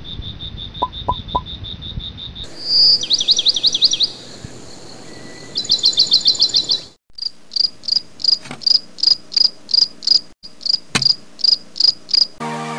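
Crickets chirping in high, regular chirps, the pattern changing abruptly a few times and settling near the end into about two chirps a second.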